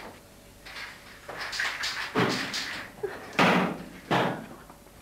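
A series of knocks and bangs, the three loudest about a second apart in the second half.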